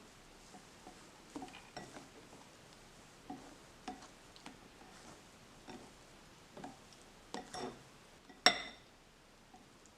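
Scattered light taps and knocks of kitchen utensils against a bowl, with one sharp, ringing clink about eight and a half seconds in.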